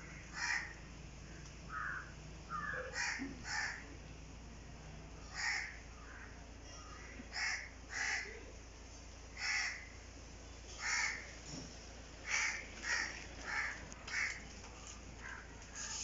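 Crows cawing repeatedly: short harsh caws at irregular intervals, some in quick pairs.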